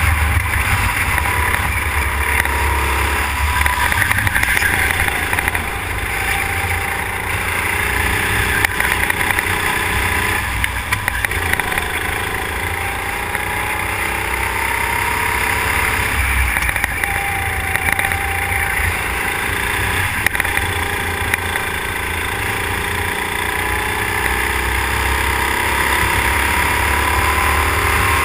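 Go-kart engine heard from on board while racing, its pitch climbing repeatedly as it accelerates and dropping back when it lifts for corners, over a steady low rumble.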